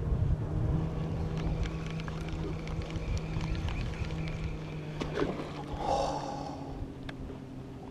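Bow-mounted electric trolling motor humming steadily while a spinning reel is cranked to fight a hooked fish, with a splash about six seconds in as the fish thrashes at the surface.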